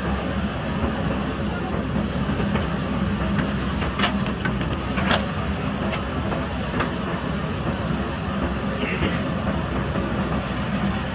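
A JCB backhoe loader's diesel engine running steadily under load, with a few sharp clanks or scrapes about four and five seconds in and again near seven seconds.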